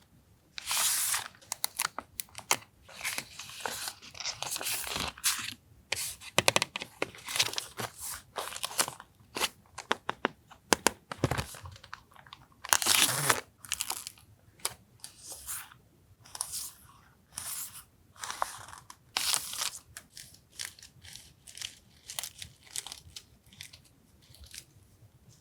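Paper stationery items and their packaging being handled: an irregular run of crinkles, rustles and sharp clicks.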